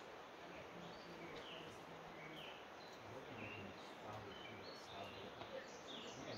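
Faint outdoor ambience: a steady hiss with small birds chirping, short falling chirps that recur about once a second.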